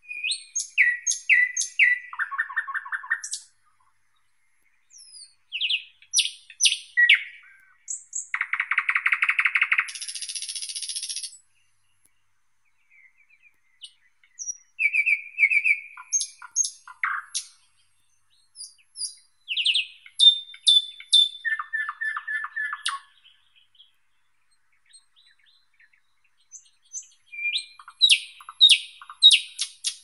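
Thrush nightingale singing: phrases of rapidly repeated whistles and sharp clicking notes, broken by short pauses. About a third of the way in comes a fast rattling series.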